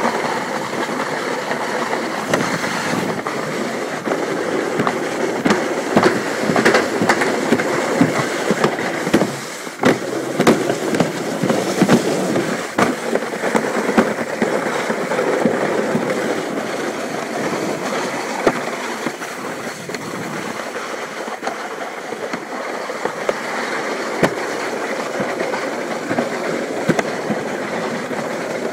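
Alpine slide sled running down its track: a steady rushing rumble with frequent sharp clacks and knocks.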